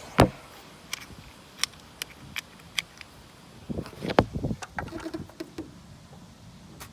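Scattered sharp clicks and knocks of tools and parts being handled, with one loud knock right at the start and a cluster of heavier knocks about four seconds in.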